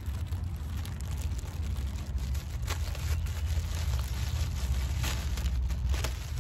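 Clear plastic bag crinkling as it is handled and shaken open, with a few sharp rustles about three seconds in and again around five to six seconds. Underneath, a steady low rumble.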